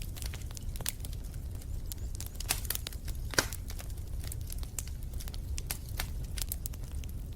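Wood fire in a fireplace crackling, with irregular sharp snaps over a low steady rumble and one louder pop about three and a half seconds in.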